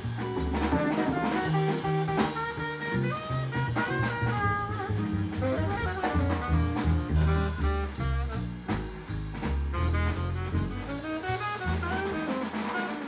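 Live jazz quintet playing at full band: tenor saxophone lines over bass, guitar and a drum kit with ride-cymbal strokes.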